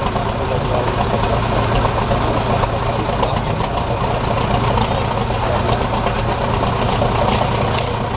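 Heavy trial truck's diesel engine running steadily with a fast, even clatter.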